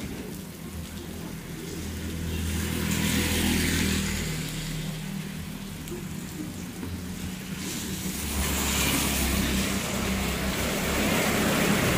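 Motor vehicles passing on a rain-wet road: tyre hiss swells about three seconds in and again from about eight seconds, over a steady low engine hum.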